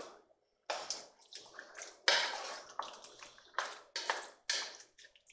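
Wooden spoon stirring chunky, brothy chili of beef, vegetables and diced tomatoes in a cast-aluminum Magnalite Dutch oven: a series of short wet sloshing strokes, starting about half a second in.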